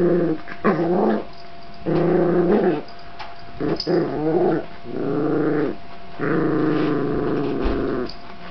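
A series of dog growls, about six, each lasting from under a second to nearly two seconds, separated by short pauses, some wavering in pitch.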